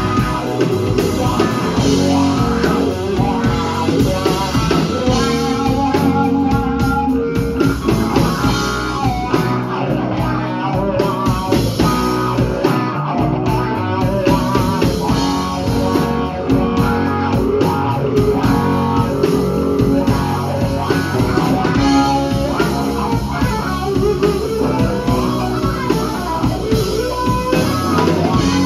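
Live blues-rock band playing a slow blues: electric guitar playing lead lines over a drum kit.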